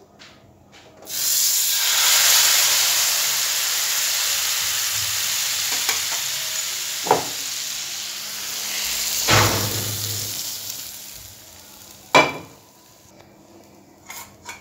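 Hot-oil tadka poured into a pot of boiled dal, setting off a loud sizzle that starts suddenly about a second in and slowly dies away over about ten seconds. A few sharp metal knocks from the pan and pot come through partway and near the end.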